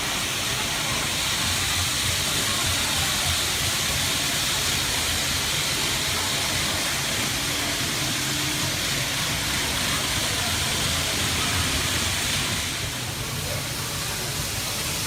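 N gauge model trains running on the layout track: a steady hiss and whir of small wheels and motors, over shop background noise.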